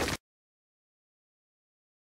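A loud, dense noise cuts off abruptly a fraction of a second in, followed by dead digital silence.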